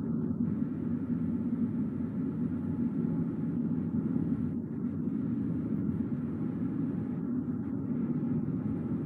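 Steady low rumble of a car driving on the road, tyre and engine noise with no sudden events.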